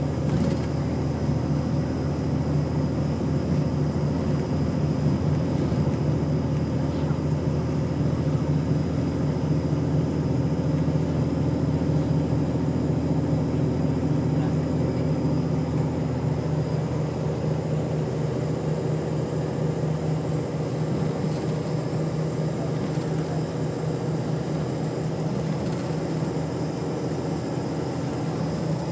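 Coach bus engine and road noise heard inside the passenger cabin while driving: a steady low drone with engine hum. One of its tones fades out about halfway through.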